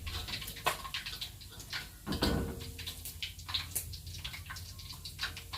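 Fish frying in hot cooking oil, crackling with many small irregular pops, and one dull knock about two seconds in.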